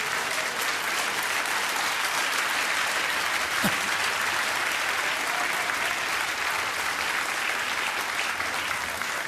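Studio audience applauding steadily after a punchline, the clapping easing off slightly near the end.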